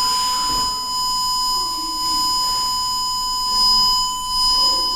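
Steady 1004 Hz test tone from an Ameritec AM-48 transmission test set, one continuous pure pitch, with a fainter high-pitched tone above it.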